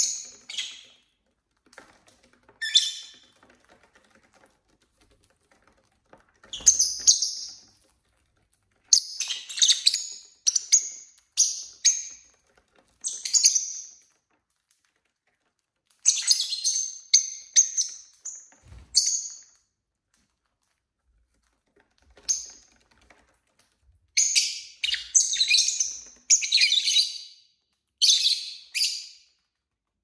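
Pet lovebirds chirping: short high-pitched calls, some single and some in quick runs of several, separated by pauses of a second or more.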